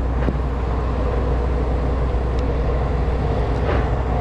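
Steady outdoor city background: a low traffic rumble with a general street din, and a couple of faint clicks, one just after the start and one near the end.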